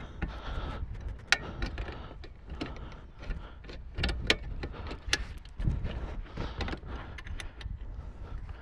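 Irregular metallic clicks and clinks of a wrench working M10 nuts and bolts into a car seat's steel frame, with low handling knocks between them.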